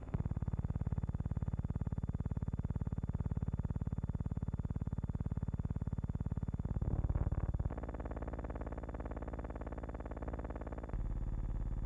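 A steady, distorted electrical buzz with many overtones, changing in tone about seven seconds in and again abruptly about eleven seconds in.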